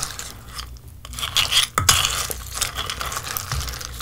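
Spoon stirring crisp cornflakes through milk in a ceramic bowl: a close crackling and rustling of the flakes, with a sharp click about two seconds in.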